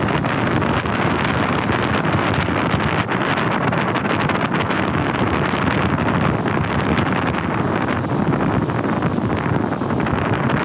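Wind buffeting the microphone over the steady rush of heavy surf breaking and washing up a beach.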